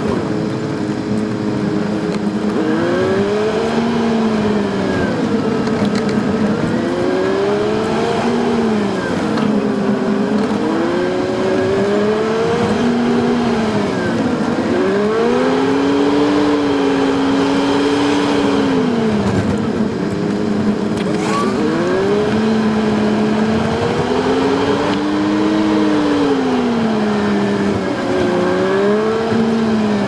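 Suzuki Jimny JB23's 660 cc three-cylinder engine running on the move, sped up about 3.6 times, so its note is high and swings up and down every two to three seconds as the revs rise and fall.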